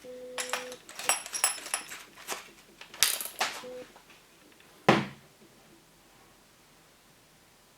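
Clicks and ringing metallic clinks of tool parts being handled. A sharp knock comes about three seconds in and a duller thump about five seconds in, then it goes quiet.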